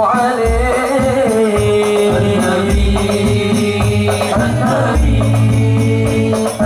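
Al Banjari sholawat group: men's voices singing a devotional chant together in long, bending notes over terbang frame drums, with a deep drum stroke about every two seconds.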